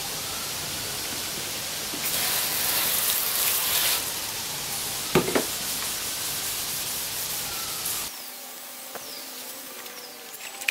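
400-grit wet/dry sandpaper rubbed by hand over a cured epoxy repair on an EPS surfboard, wet sanding. It makes a steady rubbing hiss that is loudest for a couple of seconds near the start and goes quieter near the end, with one short knock about five seconds in.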